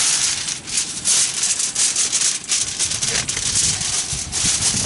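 Sheets of aluminum foil crinkling and rustling as they are handled and smoothed flat by hand, a dense run of fine crackles.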